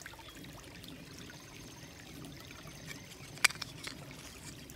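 Shallow creek trickling over stones, with one sharp click about three-quarters of the way through.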